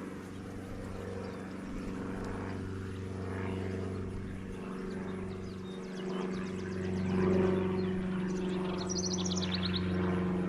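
A swarm of honeybees buzzing steadily around an opened hive, a dense droning hum; the colony is agitated and defensive. Near the end, a short, fast high trill sounds over the hum.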